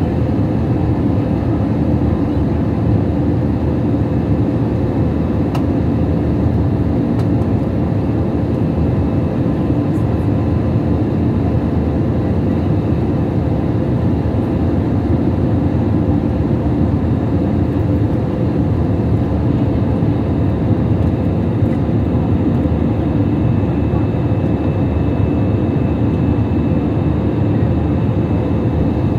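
Steady turbofan engine and airflow noise of an airliner in flight, heard inside the cabin beside the wing. It is a loud, even rumble with faint steady hum tones above it.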